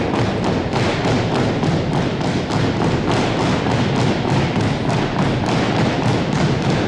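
A drill team's feet stamping in unison on a hardwood gym floor, in a steady marching rhythm of about three steps a second.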